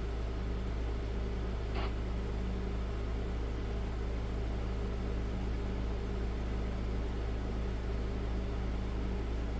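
Steady low hum with an even background hiss, and a brief faint sound about two seconds in.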